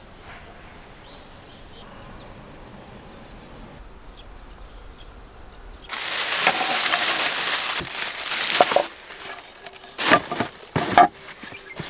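Faint chirps over a quiet background, then about six seconds in a loud crinkling of a large plastic bag being handled for about three seconds. Near the end come a few sharp knocks as a wooden tabletop is lifted off a plastic storage box.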